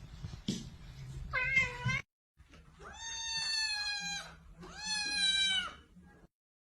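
Cat meowing: a short wavering meow, then two long, drawn-out meows after a sudden cut.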